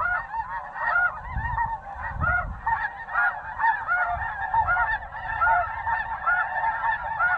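A continuous chorus of snow goose calls: many short, high honks overlapping without a break.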